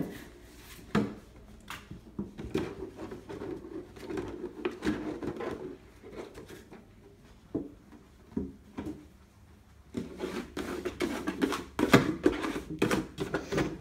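Plastic jug with a handle knocking, scraping and crinkling as a puppy carries it in its mouth and bumps it along the floor and against furniture. The sounds come in irregular bouts, with a quieter stretch in the middle and the sharpest knock near the end.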